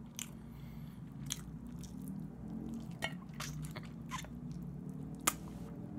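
Close-up chewing of barbecued chicken: wet mouth clicks and smacks at irregular intervals, with one sharper click about five seconds in, over a steady low hum.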